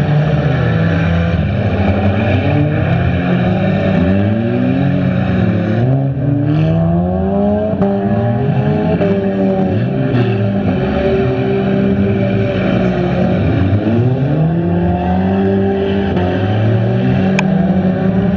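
Engines of several front-wheel-drive stock cars running and revving at once, their many pitches rising and falling as the cars speed up and slow down. There is a short sharp knock near the end.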